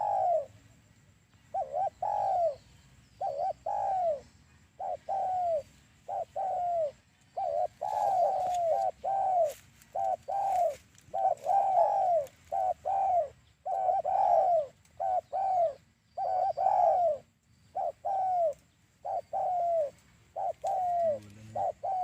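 Spotted dove (tekukur) cooing: a long, steady run of short coos that bend downward in pitch, grouped in twos and threes, used as a lure call for trapping doves.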